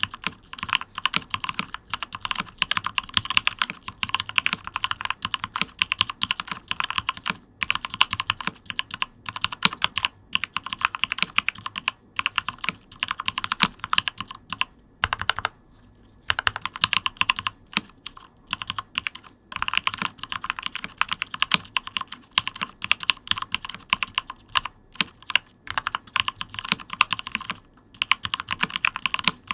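Fast, continuous typing on a mechanical keyboard with GMK Cherry-profile ABS keycaps over lubed and filmed Mauve 65g linear switches, the keystrokes coming in quick runs with a brief pause about halfway through.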